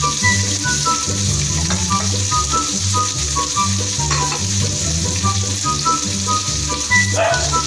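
Pork and onions sizzling steadily in hot oil in a wok. Background music with a low repeating bass line and short melody notes plays under the sizzle.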